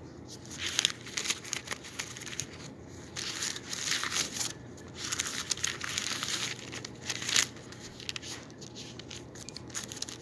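Bible pages being leafed through, rustling and crinkling in irregular bursts.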